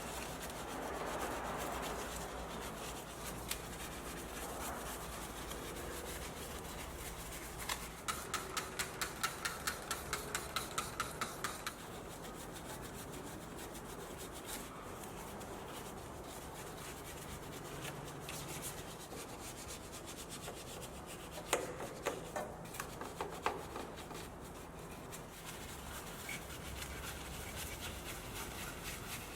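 Detailing brush scrubbing a surface with a steady rubbing hiss. Near the middle comes a run of quick back-and-forth strokes, about three or four a second, and later a few sharper scrubs.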